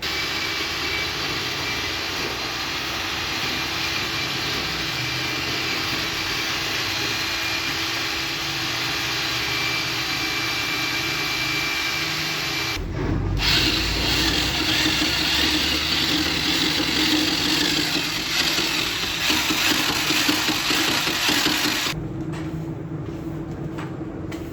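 A power tool's motor running steadily, a hum with a hiss over it. The sound cuts off abruptly about halfway through and again near the end, and it is louder after the first cut.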